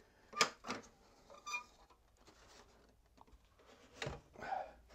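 A Nissan Navara NP300 grille and its badge being handled and turned over on a towel: a few light clicks and knocks, with a brief squeak about a second and a half in.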